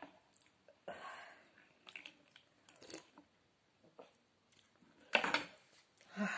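Close-up eating sounds: soft chewing and small clicks, with two louder breathy sounds near the end.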